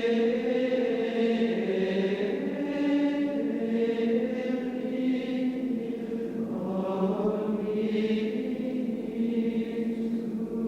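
Soundtrack music: slow wordless choral chanting, long held notes that shift in pitch every second or two.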